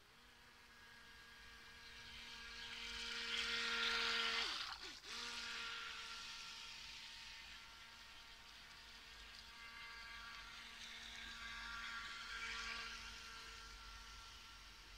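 Small electric RC toy boat running on power level 1, its motor a steady whine that dips briefly about five seconds in and then picks up again, with the rush of water from its hull and wake swelling loudest about four seconds in and again near twelve seconds.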